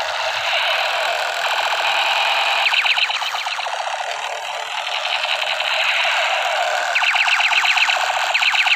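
Electronic toy machine-gun sound effect played through a small speaker: a continuous buzzing electronic sound with rapid clattering firing bursts, one about three seconds in and a longer one from about seven seconds to the end.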